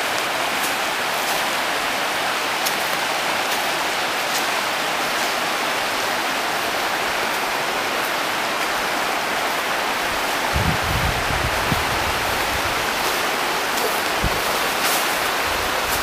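Mountain stream rushing over rocks: a steady rush of water. A cluster of low thumps breaks in a little past the middle, and one more comes later.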